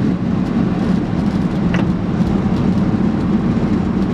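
1994 Ford F150's 5.0 V8 running steadily under way, with road and tyre noise, heard from inside the cab.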